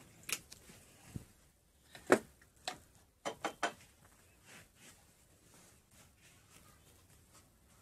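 A few light clicks and knocks at irregular moments, the loudest about two seconds in and a quick run of three a little after three seconds, with faint room noise between them.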